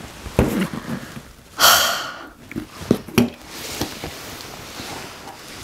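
A cardboard parcel box being handled and opened: a thump as it is set down, then a loud scraping rustle of cardboard, a few sharp knocks, and light rustling of the flaps.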